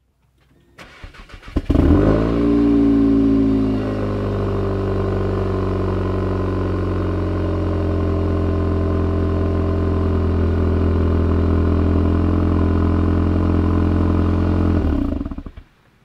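VW Golf 7 GTI TCR's 2.0-litre turbocharged four-cylinder cold-starting, heard at the tailpipe. It cranks briefly, catches about a second and a half in with a flare, settles within a couple of seconds into a steady cold idle, and falls away near the end.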